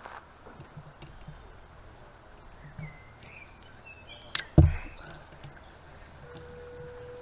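Outdoor ambience with small birds chirping, broken about four and a half seconds in by a sharp knock and a heavy low thump. A faint steady tone sets in near the end.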